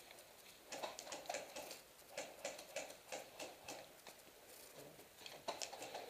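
Footsteps of a player walking over rough ground, faint irregular scuffs and crunches about two or three a second.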